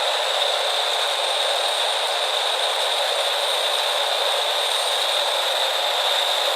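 Machinery running steadily: a constant, even noise with a high hiss and no separate strokes or breaks.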